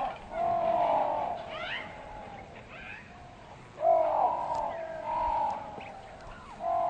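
A series of four short moaning animal calls, each under a second long: one near the start, one about four seconds in, one about a second later, and one near the end.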